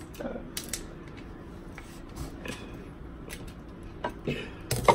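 Eating a seafood boil: scattered light clicks and cracks from handling seafood shells, with a few louder clicks near the end.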